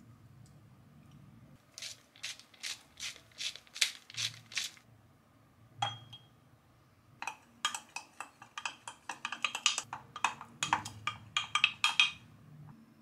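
A wooden spoon stirring a dressing in a drinking glass, scraping and knocking against the glass in quick strokes, about four or five a second, over the second half. Earlier there is a run of about eight evenly spaced clicks, then a single ringing clink about six seconds in as a spoonful of Greek yogurt goes into the glass.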